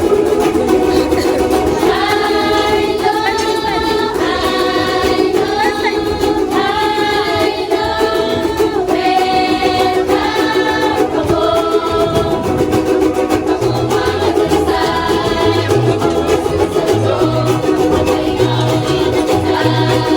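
Music: a wordless melody line over steady strummed-string accompaniment, with low bass notes joining about two-thirds of the way through.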